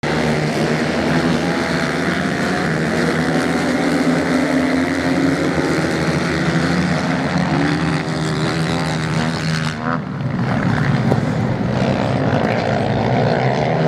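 Several off-road motorcycles racing on sand, their engines running together in a continuous loud drone with pitch rising and falling as riders change revs. The sound turns duller about ten seconds in.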